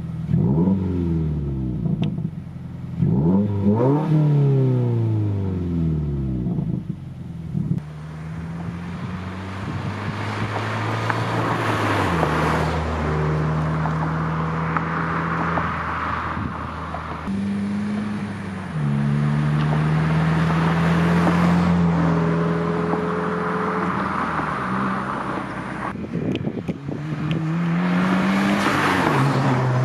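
2016 Subaru WRX's turbocharged flat-four through an ETS cat-back exhaust: two quick free revs in the first few seconds, then the engine held at steady speeds that step up and down in pitch several times, with another rev rise near the end.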